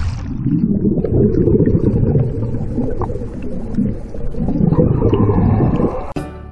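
Muffled underwater rumble and gurgle of churning sea water and bubbles, heard through a submerged camera right after a jump into the sea. Music comes in near the end.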